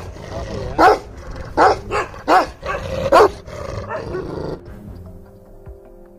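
Bhotia (Himalayan sheepdog) barking, about five deep barks over the first three seconds, then quieter music near the end.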